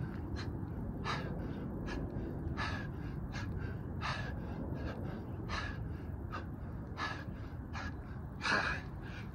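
A man breathing hard and fast from exertion during burpees, a short gasping breath roughly every three-quarters of a second, with one louder gasp near the end.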